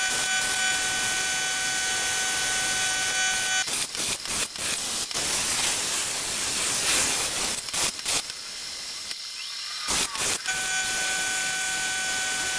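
CNC plasma torch on a Langmuir Crossfire Pro table cutting steel plate: a steady loud hiss of the plasma arc and air, with a steady high tone at the start and again near the end. A few sharp cracks come around four, eight and ten seconds in, and the hiss dips briefly just after nine seconds.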